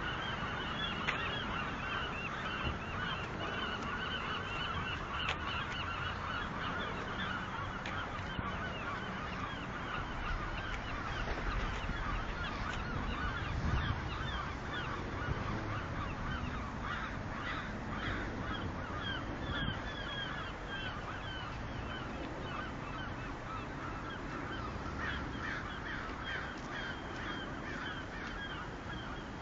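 A large flock of birds calling continuously, many short calls overlapping one another, with a low rumble partway through.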